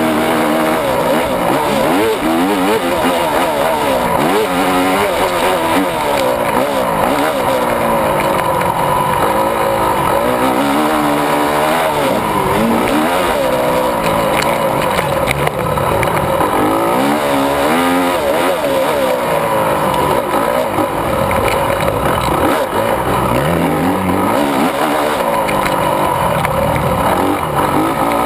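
Honda 250 four-stroke motocross bike's single-cylinder engine, ridden hard. Its pitch rises and falls again and again as the rider opens and closes the throttle and changes gear.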